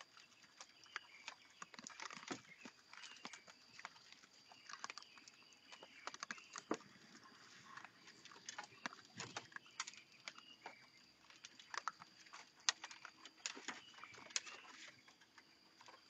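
Several raccoons feeding at a tray: many irregular faint clicks, crunches and scrabbling scrapes as they eat and move about on the feeder.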